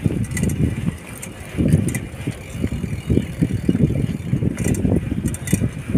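Wind buffeting the microphone as it moves along, an uneven low rumble that swells and drops, with faint scattered clicks.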